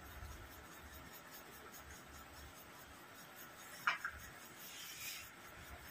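Soft sounds of rice being eaten by hand from a plastic plate, with one short sharp click about four seconds in, over quiet room tone.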